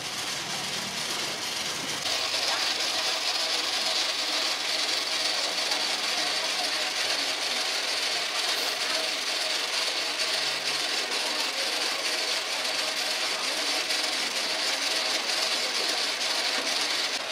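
Steady mechanical whirring with a hiss, starting about two seconds in and holding level.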